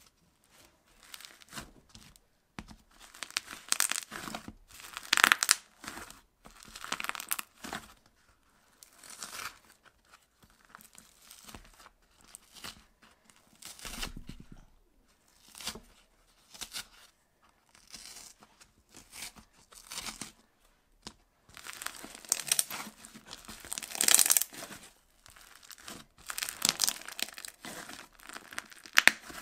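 Crunchy avalanche bubble slime being squeezed and torn by hand, its set white crust crackling and tearing in irregular bursts, louder near the start and again toward the end. It gives little of its sizzle because the trapped air escaped when the tub was moved.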